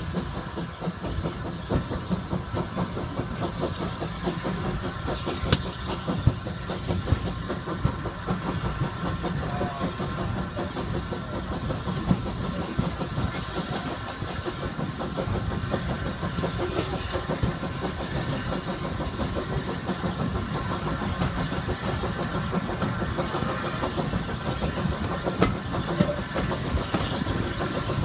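Steam train running along the track, heard from an open carriage window: a steady rumble of the locomotive and the rolling carriages, with wind on the microphone.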